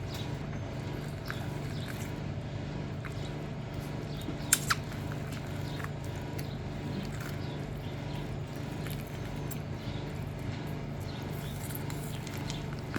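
A steady low mechanical hum, with faint scattered clicks and handling noises and one sharp click about four and a half seconds in.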